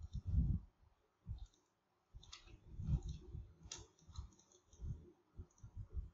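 Computer mouse clicking, with two sharper clicks a bit over two seconds in and just before four seconds, among soft low thumps.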